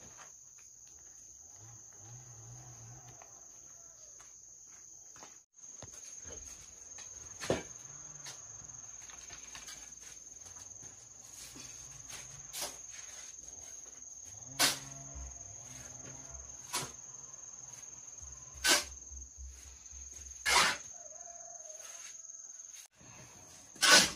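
Insects, cricket-like, trilling: a steady high-pitched drone. About half a dozen sharp knocks are scattered through it, the loudest near the end.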